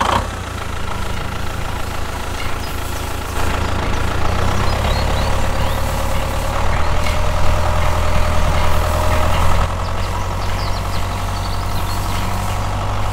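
A tractor engine running steadily, a deep low rumble with a drone over it, growing a little louder for a few seconds in the middle.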